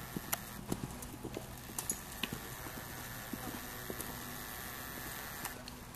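Hoofbeats of a ridden horse moving at a lope on a dirt arena, as irregular thuds mostly in the first two seconds or so.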